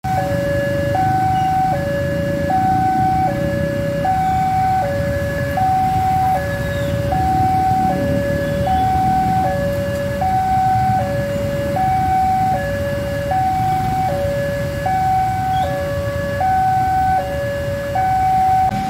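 Level-crossing warning alarm sounding its two-tone signal, a high tone and a lower tone taking turns about every three-quarters of a second: the crossing is closed for an approaching train. A steady low rumble of waiting traffic runs underneath.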